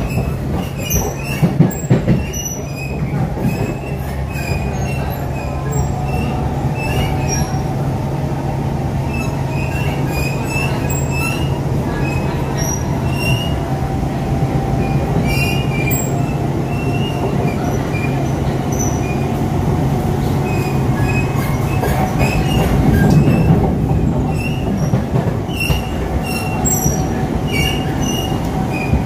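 SMRT C651 metro train heard from inside the car while running at speed on an elevated line: a steady rumble of wheels and running gear with a low hum, and short high wheel squeals scattered throughout. The low hum drops out about three-quarters of the way through, followed by a brief swell in the rumble.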